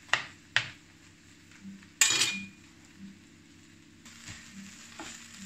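Chef's knife chopping twice on a plastic cutting board. About two seconds in, the knife is set down on a tiled counter with a clatter and a short metallic ring.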